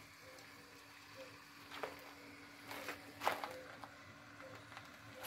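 Quiet background with a faint steady hum and scattered light clicks and knocks, the loudest a little past three seconds in.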